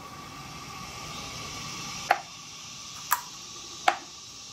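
Three sharp clicks, about a second apart, from the plastic and metal parts of a 1999 Nissan Maxima EGR valve being fitted together by hand as its shaft is lined up. A steady low hiss runs underneath.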